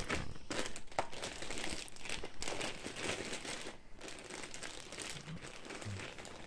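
Thin clear plastic bag crinkling and rustling as a laptop is slid out of it by hand. The crackling is busiest over the first few seconds and grows softer and sparser after about four seconds.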